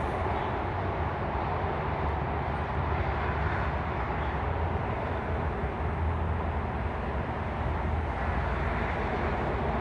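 Steady traffic noise from a highway: a continuous, unbroken rush of passing vehicles with a strong low hum.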